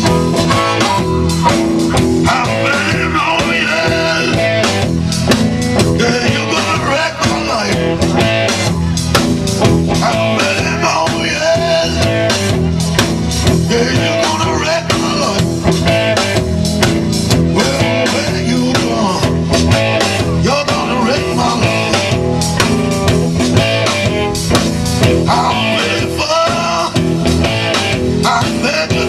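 Rock band playing live: guitar over a drum kit keeping a steady beat, loud throughout.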